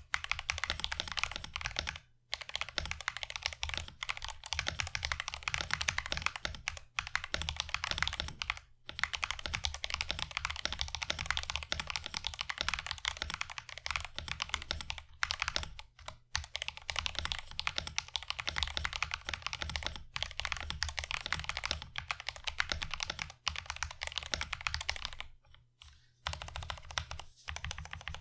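Mechanical keyboard with Wuque Studio WS Yellow linear switches (nylon housings, POM stems, factory-lubed) being typed on quickly and continuously, a rather clacky sound. Short pauses in the typing come about two, nine, sixteen and twenty-six seconds in.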